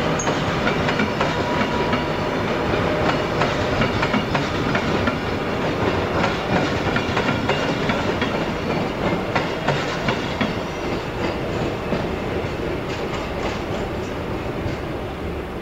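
Passenger train coaches rolling past, wheels clicking and clattering over the rail joints. The sound eases slightly near the end as the last coach goes by.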